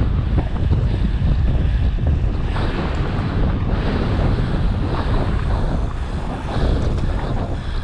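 Heavy wind buffeting the microphone of a mountain bike rider descending at speed, a steady deep rumble with faint ticks and rattles from the bike.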